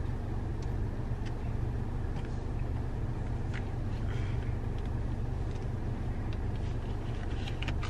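Steady low hum of a car heard from inside the cabin while parked, its engine idling, with faint small rustles and ticks.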